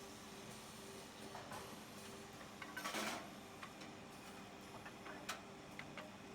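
Automatic two-head woodworking drilling machine humming steadily, with scattered sharp clicks and a brief clatter about three seconds in.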